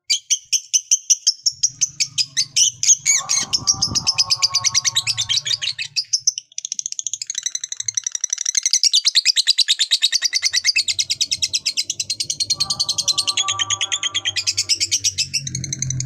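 Lovebird giving its long 'ngekek' chatter: shrill high notes repeated rapidly, at first as separate pulses about four a second, then running together into one long unbroken trill from about six seconds in. Twice a lower, steadier warbling note sounds underneath.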